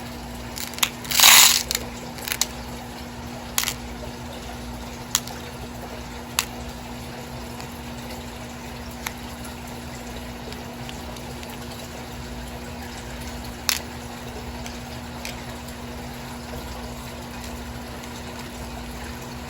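Handling of a packaged glass bead strand: a brief crinkle about a second in, then sparse light clicks and taps every second or few, over a steady low hum.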